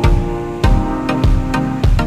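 Background music with a steady beat: held instrumental notes over a drum hit roughly every 0.6 s.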